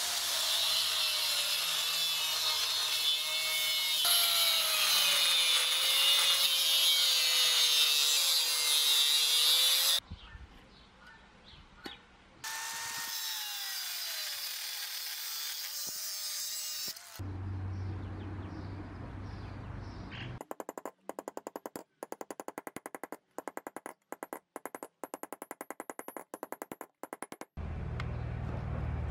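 Angle grinder with a cut-off disc cutting through the rusted steel socket of a shovel, its motor pitch sagging and wavering as the disc bites. It stops about ten seconds in, then cuts again for a few seconds with the pitch falling. Near the end comes a fast, even run of clicks.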